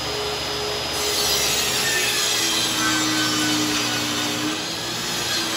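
Table saw ripping a cedar fence plank lengthwise into thin shingle strips. The saw runs steadily, and its tone sags lower twice as the blade takes the load of the cut.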